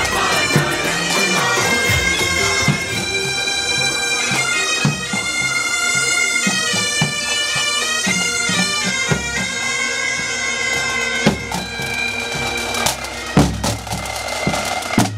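Pipe band of Great Highland bagpipes playing a marching tune over the pipes' steady drone. Drum strikes grow louder near the end as the snare drummers come up.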